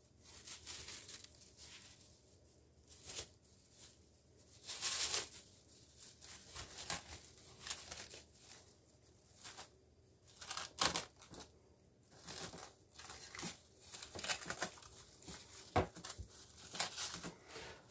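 Plastic cling film crinkling and crackling as it is stretched over a ceramic bowl and pressed down around the rim, in short crackles on and off.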